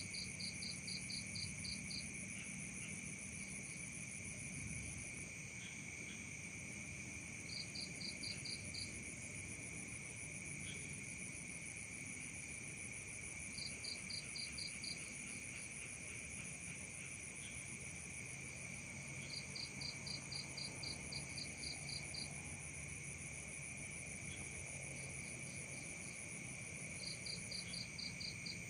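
Night chorus of crickets and other insects: several steady high-pitched trills held without a break, with a rapid pulsed chirp of about ten beats breaking in every six seconds or so.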